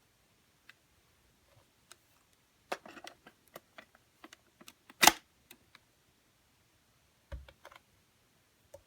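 Scattered clicks and clunks of a 1960s Smith Corona Mail Call cartridge recorder being handled and its controls worked to start playback of a tape cartridge. There is a cluster of clicks about three seconds in, the loudest clunk about five seconds in, and a softer knock near seven and a half seconds.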